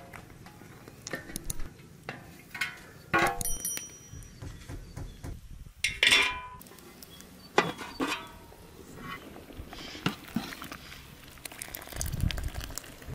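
Cooking utensils and dishes clinking and knocking several times, one strike ringing briefly. The loudest knock comes about halfway through.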